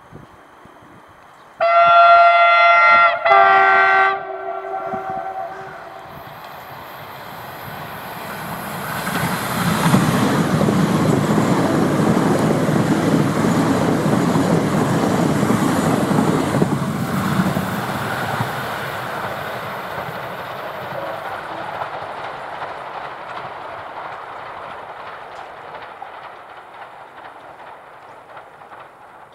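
Hyundai Rotem HRCS2 high-speed electric train sounding its horn twice, a chord of several tones, first about a second and a half long, then a shorter blast. The train then rushes past at speed, loudest midway, and its noise fades slowly as it draws away.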